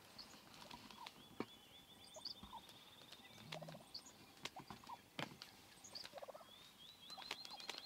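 Wild turkey gobbler gobbling faintly, a few short rattling gobbles about halfway through and near the end. A faint high, pulsed trill runs behind in places.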